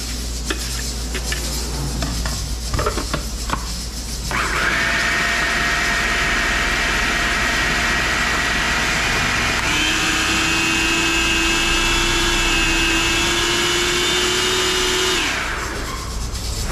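Electric countertop blender chopping fresh green seasoning (culantro, garlic, pimento peppers, chive, celery). A few knocks and clicks as the lid goes on, then the motor starts about four seconds in with a steady whine. The pitch shifts higher partway through, and the motor stops near the end.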